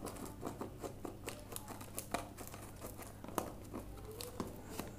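Packing tape and plastic wrap on a cardboard parcel crinkling and tearing as it is pulled open by hand, with many small irregular snaps and clicks.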